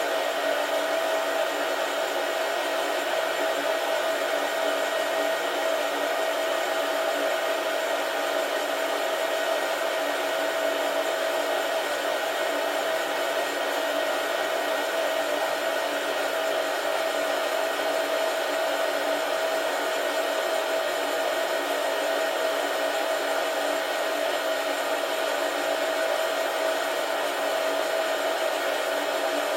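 Beanbon home coffee roaster running steadily mid-roast: an even blowing noise with a steady whine, no clicks standing out.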